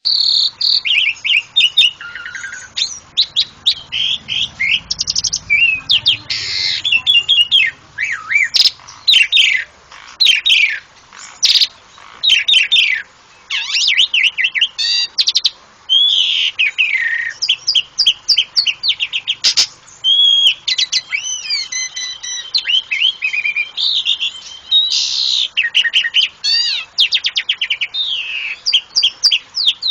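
Asian pied starling (jalak suren) singing a long, varied song of whistles, chattering notes and fast trills, with hardly a pause.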